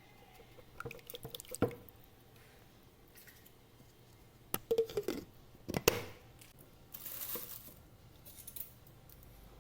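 Kitchen handling sounds: sharp clinks and knocks of glass and utensils in a few clusters, the loudest about six seconds in, followed by a couple of short liquid splashes or pours, as the herbal juice is prepared.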